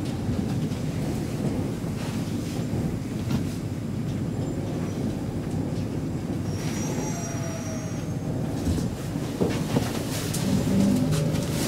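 Stockholm Metro C6 train slowing along a platform, heard from inside the car: a steady rumble of wheels and running gear, a brief high squeal about seven seconds in, and clicks and knocks near the end as it nears a stop.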